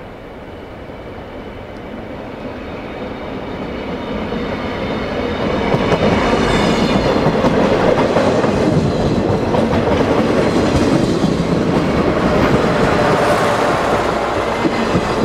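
Railway maintenance-of-way work train rolling past close by, its steel wheels clacking and rumbling over the rails. The sound grows louder over the first six seconds as the flatcars approach, then stays loud as the cars and a yellow rail machine pass.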